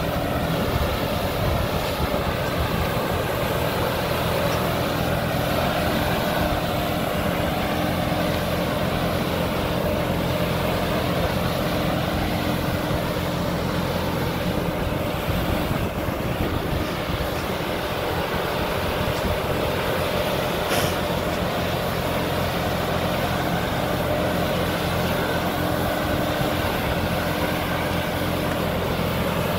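Kubota Neostar B2441 compact tractor's diesel engine running steadily while it drives the PTO-powered fan of a trailed air-blast sprayer, which gives a continuous rush of air as it blows spray mist into the vines.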